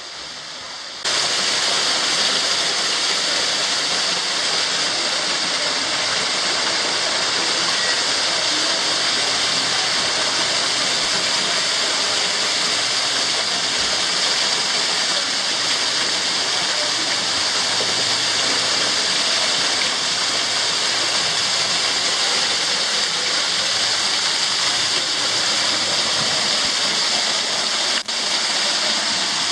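Waterfall: a steady, loud rush of falling water that cuts in suddenly about a second in, with a brief dip near the end.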